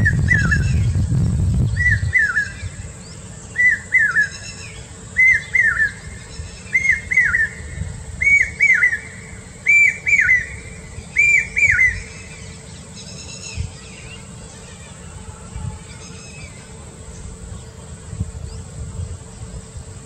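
Common hawk-cuckoo (brain-fever bird) calling: repeated phrases of two or three sharp notes, about one phrase every one and a half seconds, each higher in pitch and louder than the last, the climbing series breaking off about twelve seconds in, followed by a few fainter calls. A low rumble covers the first two seconds.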